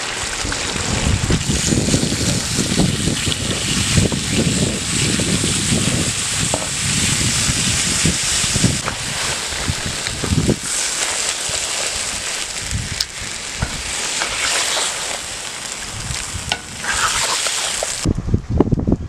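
Chicken pieces and chopped tomatoes sizzling in hot oil in a cast-iron kazan, stirred and scraped with a metal ladle. The sizzling cuts off suddenly about a second before the end.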